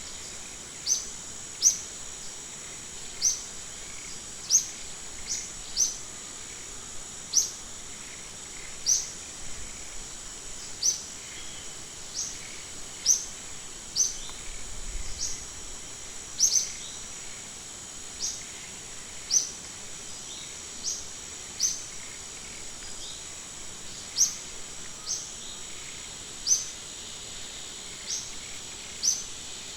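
A bird repeating short, sharp downward-sliding chirps about once every second or so, over a steady high-pitched insect drone.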